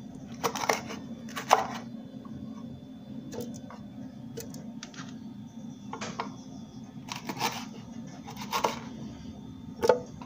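Kitchen knife chopping serrano chiles on a wooden cutting board: about ten sharp knocks of the blade on the board, coming at irregular intervals. A steady low hum runs underneath.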